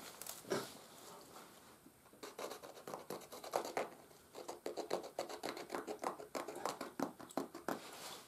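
A hand-held stone flake slicing through buckskin: a run of short, quick scratchy cutting strokes starting about two seconds in.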